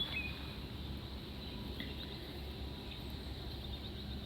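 Outdoor ambience: a low steady rumble with a few faint, short bird chirps near the start and a thin, steady high insect-like tone.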